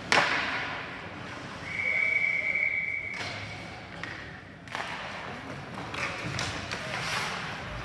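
A sharp crack at the start, then an ice hockey referee's whistle blown once for about a second and a half, stopping play, over arena noise with a few more knocks.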